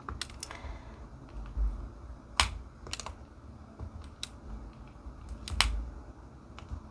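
Irregular light clicks and taps of diamond painting: a drill pen picking up drills and pressing them onto the canvas, a few taps a little louder than the rest.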